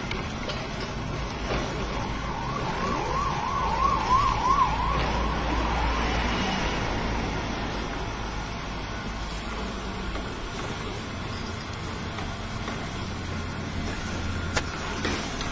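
Stone oil mill (kal chekku) grinding groundnuts, a low steady rumble. For a few seconds near the start, a siren-like tone wavers up and down about three times a second over it and is the loudest sound.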